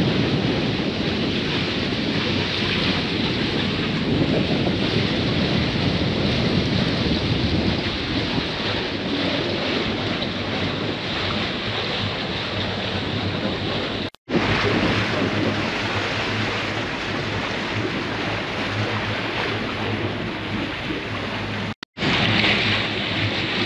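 Wind buffeting the microphone over water rushing along the hull of a sailing yacht under way at sea; the sound breaks off abruptly twice, briefly.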